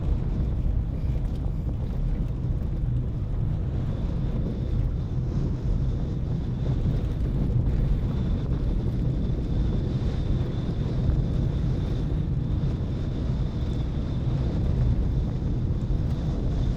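A car being driven at steady speed, heard as an even low rumble of road and engine noise with some wind buffeting. A faint steady high whine sits above it.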